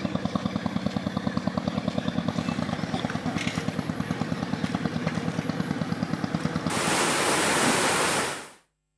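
Engine running with a steady rapid chug, about seven beats a second. About seven seconds in, a loud rushing hiss takes over, then fades out to silence.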